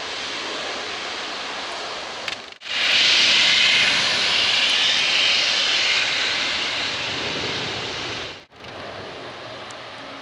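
Jet noise from an Airbus A350-900's Rolls-Royce Trent XWB engines on the landing rollout, with spoilers raised: a steady rushing roar. It cuts out briefly twice and is loudest in the middle stretch.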